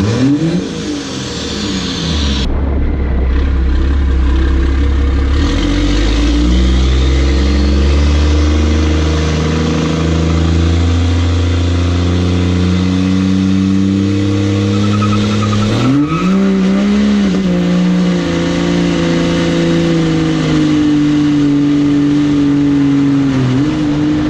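Straight-piped 6.7 Cummins turbo-diesel heard from outside the truck as it pulls away and accelerates. The exhaust note climbs and drops back several times as it goes through the gears, then settles into a steadier cruise near the end, with wind and tyre noise over it.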